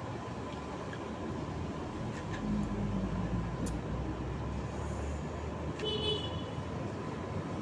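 Outdoor traffic noise: a motor vehicle rumbling past in the middle, and a short horn toot just before six seconds in. A few small clicks sit over it.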